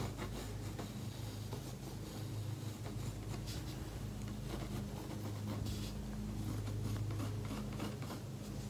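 Pencil scratching on an acrylic-painted canvas as a shape is drawn in light strokes, over a steady low hum.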